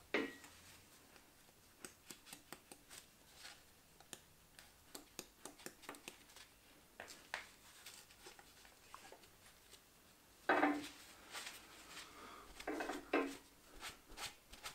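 Hand scraper scraping old gasket sealant off the crankcase's oil-pan mating surface of a VW 1.9 diesel engine, in many short strokes with light metal clicks, louder for a moment about ten and a half seconds in.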